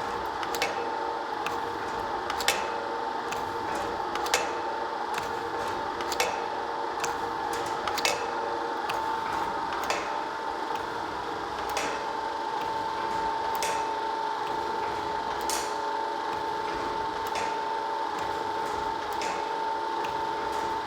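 Flattening-and-forming machine running: a steady motor whine with a sharp click about every two seconds as it cycles, and lighter ticks in between.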